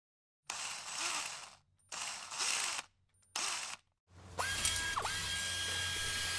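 Three short bursts of mechanical ratcheting clicks as the crawler is assembled with hand tools. From about four seconds in, a small electric motor whines steadily at one pitch, dipping sharply once.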